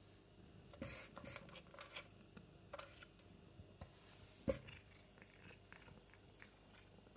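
Cat eating dry kibble from a plastic slow-feeder bowl: a scatter of small crunches and clicks over the first few seconds, the sharpest about four and a half seconds in.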